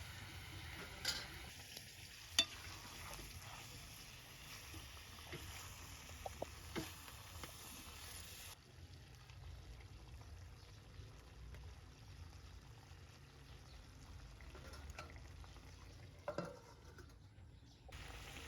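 Chicken curry sizzling faintly as it fries in a pan, with a few sharp clicks scattered through it.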